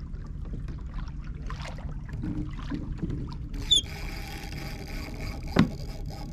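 Water sloshing and lapping around a fishing kayak at sea, with a low rumble. From about halfway through a steadier whir comes in, with a brief high falling whistle, and there is a single sharp knock about a second before the end.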